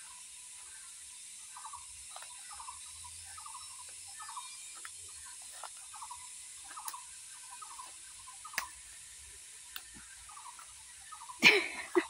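Footsteps crunching and rustling through forest leaf litter and undergrowth, about two steps a second, under a steady high hiss. Near the end comes a sudden loud burst of rustling as someone drops onto the ground among the brush.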